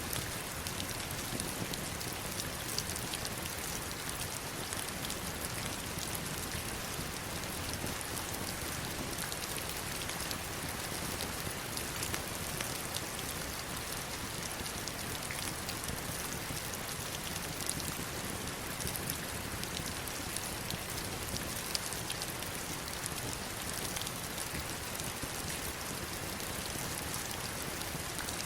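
Heavy rain falling steadily: an even, unbroken hiss dotted with many sharp drop hits.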